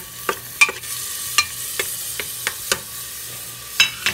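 Chopped onion and garlic sizzling steadily in clarified butter in an aluminium pressure-cooker pot. A spoon stirs them, knocking against the pot in about a dozen sharp, uneven clinks that are the loudest sounds.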